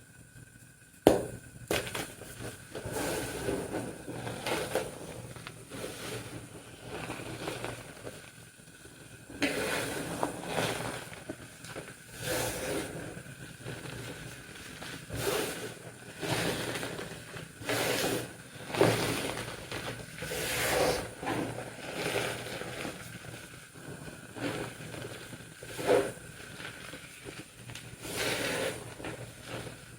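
Blocks of pink-dyed gym chalk being crushed by hand into soft powder: irregular crunching and crumbling every second or two, with one sharp crack about a second in.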